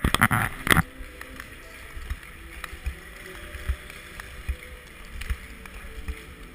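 Long-track speed skates stroking over ice: a steady scraping, rushing noise with a low thump about once a second as each skate pushes off. A loud clattering burst fills the first second.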